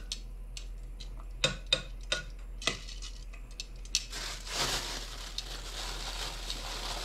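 Metal tongs clicking and tapping against a rice cooker's inner pot as fish head pieces are laid in, five sharp clicks in the first four seconds. From about four seconds in, a plastic bag rustles and crinkles as a hand reaches into it.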